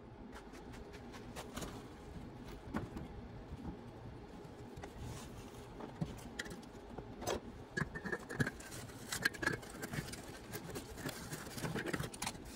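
Irregular light clicks, taps and scraping, as of hands working with tools and parts, with a faint thin squeak coming and going in the second half.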